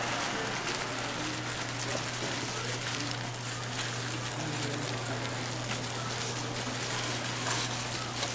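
Steady hissing background noise with a constant low hum underneath.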